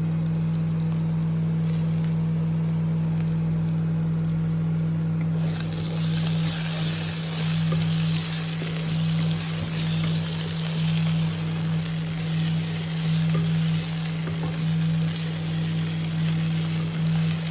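Onions frying in oil in a pan on an induction cooktop: the sizzle jumps up suddenly about five seconds in and then runs on steadily, over a steady low hum from the cooktop.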